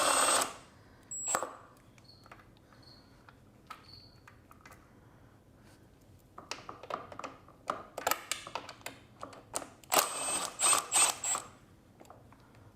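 Short bursts of clicking and metallic clinks from a socket wrench working the 8 mm bolts at the back of a pit bike, with quiet pauses between them and a few brief high metallic pings near the end.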